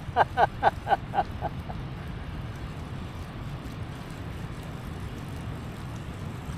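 Wind buffeting the microphone, a steady low rumble. In the first second and a half, a quick run of about six short pitched notes, about four a second, growing fainter.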